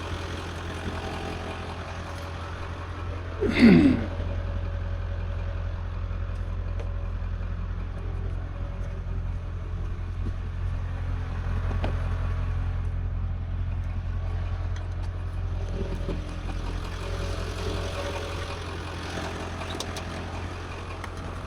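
Vehicle engine idling steadily, with a brief loud sound falling in pitch about three and a half seconds in.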